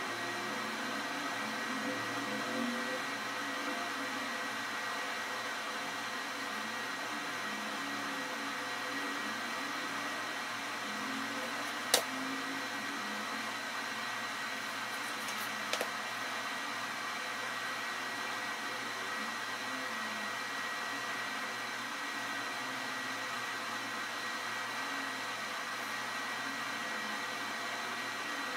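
Steady machine-like hum and hiss with a faint high whine running under it. There is a single sharp click a little before the middle and a brief small tap a few seconds later.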